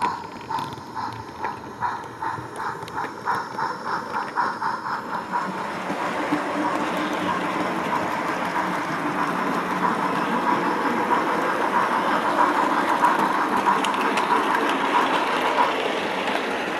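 Recorded steam-locomotive chuffing from a Train-Tech battery-powered sound capsule's small speaker in an OO gauge model steam engine, playing a two-cylinder engine sound file. The exhaust beats start distinct, at about three to four a second, then quicken until they run together into a continuous rush about a third of the way in.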